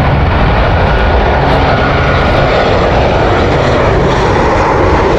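Airliner coming in to land, its engines making a loud, steady rumble as it passes.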